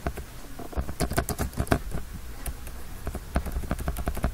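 Computer keyboard being typed on: irregular key clicks, several a second, as a line of text is entered.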